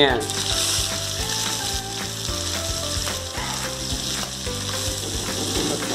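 Chopped onions slid off a steel plate into hot oil in a kadai, sizzling at once and steadily, with the spatula clinking and scraping on the plate.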